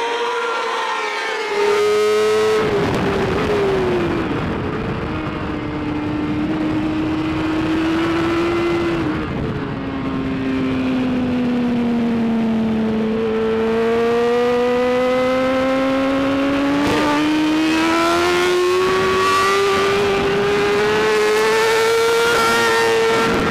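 BMW S1000RR inline-four superbike engine running hard in a race. Its pitch sags slowly with a couple of small drops, then climbs steadily through the second half as the bike accelerates.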